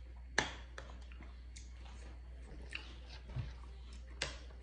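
Close-miked chewing and slurping of juicy watermelon and grapes in a creamy dressing, with soft wet mouth sounds. A metal spoon clicks sharply about half a second in and again near the end, with smaller clicks between.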